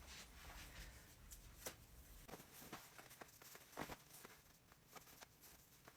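Faint rustling of clothing being pulled on, with a few soft clicks.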